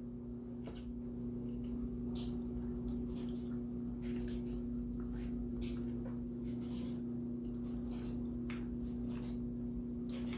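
Close-up mouth sounds of eating chicken feet by hand: wet chewing, lip-smacking and sucking on the small bones, heard as many short sharp smacks and clicks. A steady low hum runs underneath.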